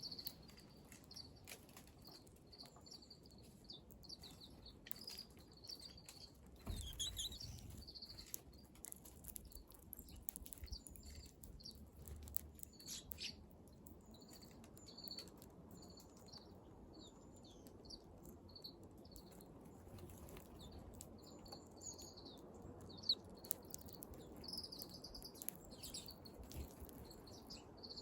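Small wild birds calling outdoors: many short, high chirps, scattered throughout, with a soft thump about seven seconds in.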